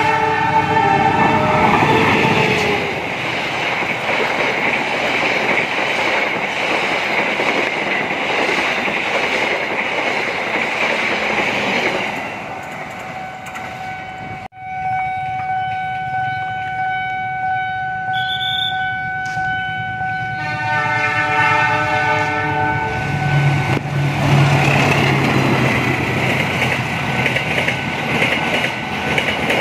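Diesel locomotive horn blasting as a train comes on, then the rumble and clatter of the train running past. After a sudden break there is a steady high tone for several seconds. A second horn blast comes about two-thirds of the way through, then engine hum and wheel noise as another train passes.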